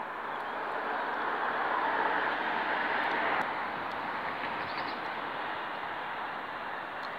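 Passing vehicle noise, swelling over the first couple of seconds and then dropping off suddenly about three and a half seconds in, leaving a steady, lower traffic hum.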